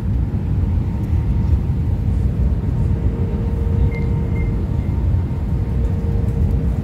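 Airliner cabin noise: a steady low rumble of the engines and airflow, with a steady hum over it.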